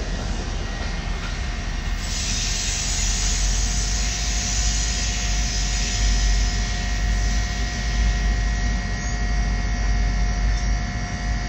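Steady low rumble of two EMD diesel locomotives, an SD40E and an SD60E, running on past the crossing, with a thin steady ringing tone from the grade-crossing signal's bell over it.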